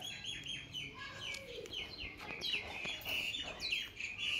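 Small birds chirping: a quick run of short, high chirps, several a second, growing busier in the second half.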